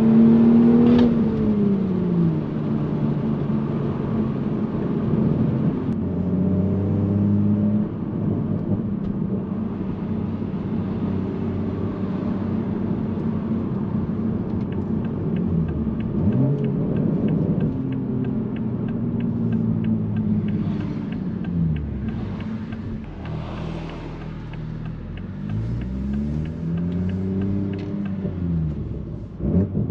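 Toyota A90 Supra's B58 turbocharged inline-six, heard through an AWE Touring Edition exhaust while driving. The engine note drops as the revs fall early on and holds steady while cruising. Later the revs rise and fall again several times.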